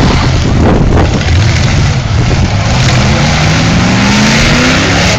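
Several V8 demolition-derby cars running and revving together, loud, with one engine's pitch rising steadily over the last couple of seconds as it is revved.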